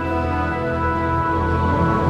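Background music: slow, sustained held notes over a steady low bass.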